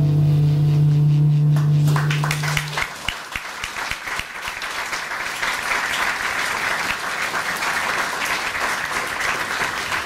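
A jazz quartet's last chord, with saxophone, double bass and piano, is held and then stops about three seconds in. An audience breaks into applause as it ends, and the clapping carries on steadily.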